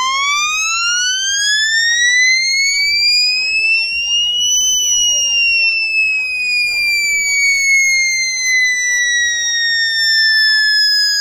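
A DJ sound system, Dev Audio's 'Hulk' rig of twelve bass and eight line-array cabinets, playing a loud siren-like tone that rises steeply for about the first five seconds, then falls slowly.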